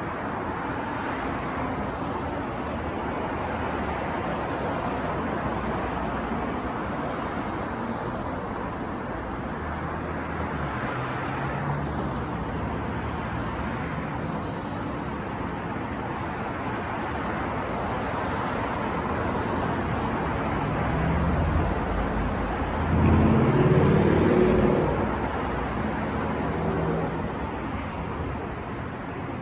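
City street traffic: a steady wash of passing cars and tyre noise. Twice a vehicle's engine grows louder as it goes by, the second and loudest pass coming near the end.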